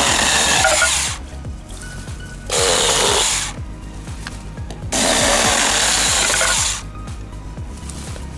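Small battery-powered chainsaw cutting through green bamboo in three short cuts: the first ends about a second in, a brief one comes around three seconds, and a longer one runs from about five to nearly seven seconds.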